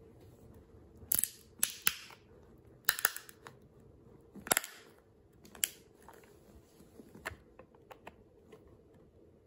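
Hard plastic CGC grading case cracking and snapping as a flathead screwdriver pries its seam apart. There are a handful of sharp cracks in the first six seconds, the loudest about four and a half seconds in, then lighter clicks.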